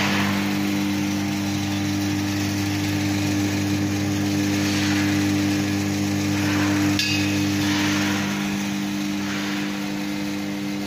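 A DH50-I screw oil press running: a steady electric hum from its motor and drive, with a hiss that swells and fades every few seconds. The lowest part of the hum drops away about eight seconds in.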